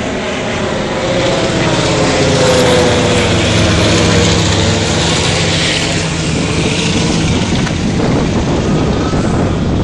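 Antonov An-2 biplane's nine-cylinder radial engine running as the plane flies low overhead, loudest a few seconds in and easing slightly as it moves away.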